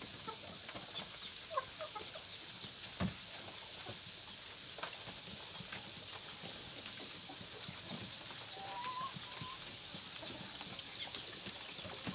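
Massed chorus of thousands of farmed crickets chirping together in a crowded rearing pen: a steady, high-pitched trill that never lets up.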